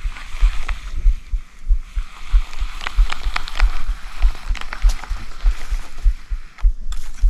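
Footsteps thudding about twice a second at an even walking pace, over a steady higher hiss with scattered clicks.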